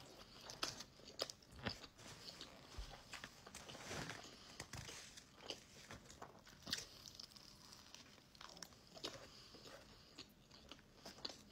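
A person chewing a mouthful of soft sandwich: scattered soft crunches and wet mouth clicks at an uneven pace, after a bite into the sandwich at the start.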